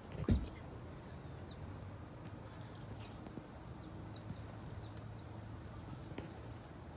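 A thump as the camera is set down on the ground. Then faint, short, high bird chirps come now and then over a steady low hum.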